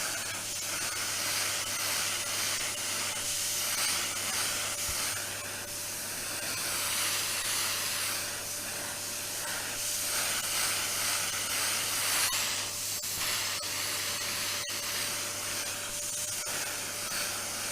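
Vacuum cleaner running steadily: a rush of air with a faint steady whine and a low hum, with a few light knocks in the second half.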